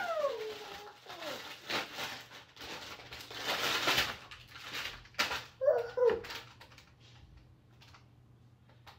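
A woman's excited whoop trailing off, falling in pitch, then a plastic bag crinkling and rustling as it is handled, loudest about four seconds in, with a short high vocal sound about six seconds in.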